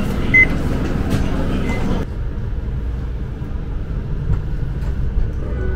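Utsunomiya Light Rail tram and its surroundings: a steady noisy rumble with one sharp click early on. About two seconds in, the upper hiss cuts off abruptly, leaving only a low steady rumble.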